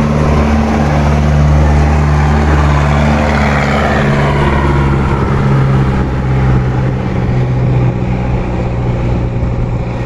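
Engine of a wheeled armored car running steadily as the vehicle drives along and away, with a deep, even engine note.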